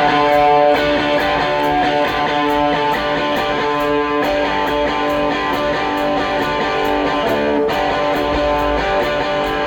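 Rock song intro: electric guitar playing held, ringing chords over a steady light ticking beat, like a hi-hat, before the full band comes in.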